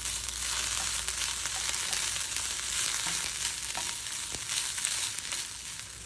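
Grated coconut, shallots, dried red chillies and other chutney ingredients sizzling steadily in a hot nonstick pan as they are stirred with a silicone spatula, with a few light clicks from the stirring.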